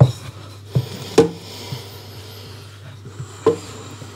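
Hand kitchen prep of sausages in dough: about four sharp knocks on the work surface with soft rubbing between them, over a steady low hum.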